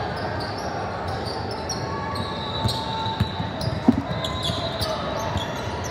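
Basketball game in a gym: the ball bouncing on the hardwood floor with scattered knocks, the loudest about four seconds in, over echoing hall noise with short high sneaker squeaks and faint voices.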